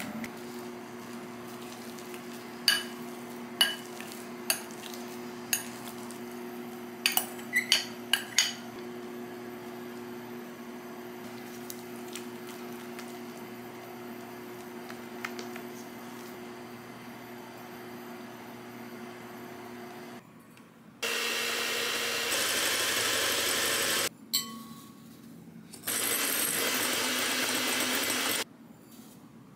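Wire whisk stirring thick kabocha squash batter in a glass bowl, with several sharp clinks of the whisk against the glass in the first third. About two-thirds of the way in, an electric hand mixer whirs loudly in two runs of a few seconds each, beating egg whites for meringue.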